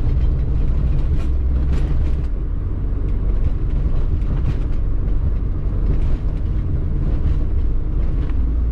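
Steady low rumble of a car's engine and road noise while driving, heard from inside the cabin, the engine running on oil treated with a molybdenum additive.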